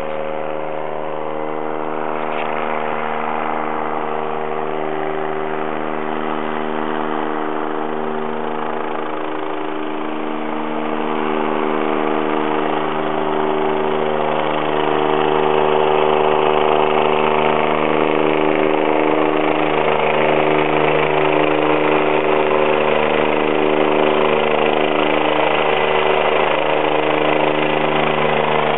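Eurocopter mountain-rescue helicopter approaching in flight: a steady engine and rotor drone with several held tones, growing louder around the middle as it comes closer.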